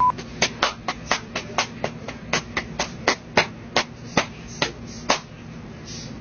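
A hand patting a cat in quick, uneven pats, about twenty in all at two to four a second, stopping a little after five seconds in.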